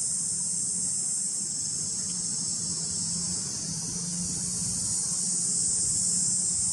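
Steady, high-pitched drone of an insect chorus.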